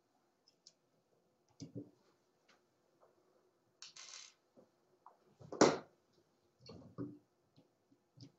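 Scattered clicks and light knocks of a hand tool and small nuts and bolts being worked loose from a 3D printer's drag chain, with one louder knock a little past halfway and a short scrape just before it.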